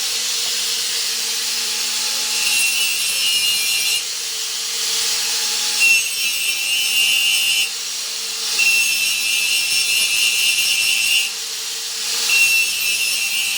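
A power tool working steel in four passes of a second or two each, every pass adding a high whine and harsh hiss over a steady hum and hiss.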